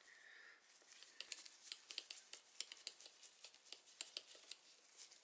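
Faint, irregular small clicks and ticks of a hex-bit driver turning the pivot bolt into a Hope Race Evo brake lever, with gloved fingers handling the metal lever.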